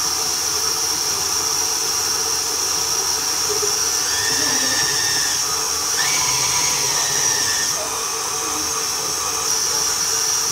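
Electric tilt-head stand mixer running steadily, its motor whining with small shifts in pitch as the beater works flour into butter, sugar and egg for cookie dough.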